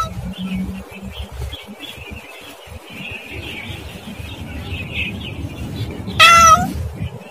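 A cat meowing: a brief meow right at the start and a longer one about six seconds in, over a faint low background rumble.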